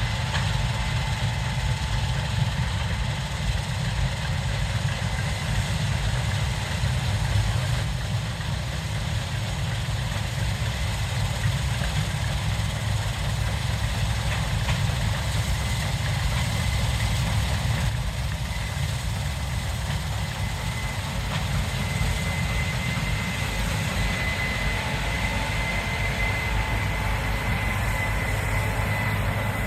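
Case IH 7230 Axial-Flow combine running steadily: a deep engine drone with a thin, steady high whine over it that grows stronger near the end.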